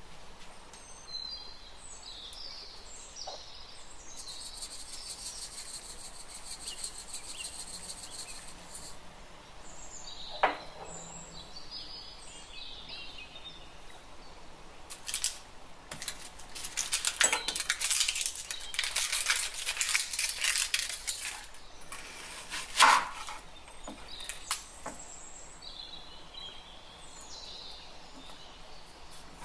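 Quiet kitchen sounds: a high hiss from the saucepan of water with faint bird-like chirps, then a long run of dry, crackly rustling as papery onion skin is peeled, ending in a single sharp knife knock on a bamboo cutting board about two-thirds of the way through.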